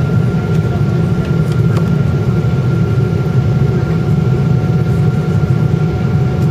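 Steady cabin rumble of a Boeing 777-200ER's GE90 engines with the airliner climbing just after takeoff, with a faint steady whine above the rumble.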